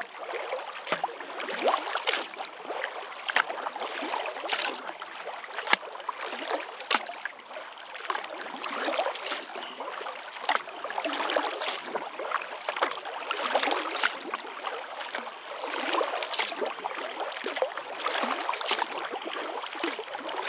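Kayak paddle strokes in calm water: the blade splashes in and out with a steady rhythm of about one stroke every second or so, water dripping and trickling from the paddle between strokes.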